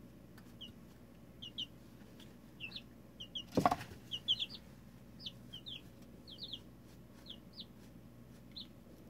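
Two-week-old pullet chicks peeping: short high peeps, often two at a time, scattered throughout. A brief loud rustle about three and a half seconds in.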